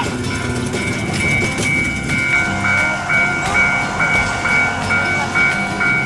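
Miniature level-crossing warning bell ringing, an electronic ding repeating about twice a second. A second, lower-pitched crossing bell joins in about two seconds in and rings alternately with it.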